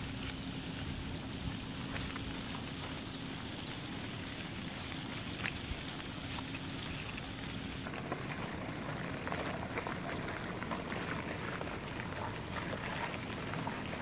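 Christmas Island red crabs scuttling en masse: a constant patter of small clicks and taps from their legs on the ground, growing busier about halfway through, over a steady high-pitched drone.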